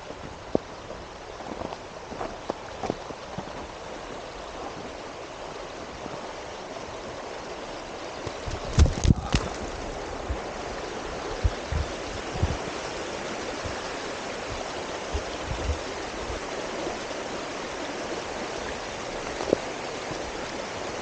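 Steady rushing of a running stream that grows a little louder over the first several seconds, with a cluster of sharp knocks about nine seconds in and a few soft thumps after it.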